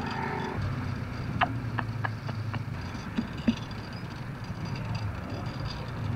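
A vehicle engine running steadily, with a few faint clicks about a second and a half to two and a half seconds in.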